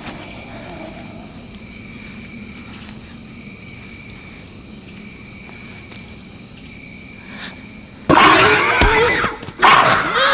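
Night ambience of steadily chirring insects for about eight seconds, then a sudden loud commotion: a crash and a person crying out and screaming.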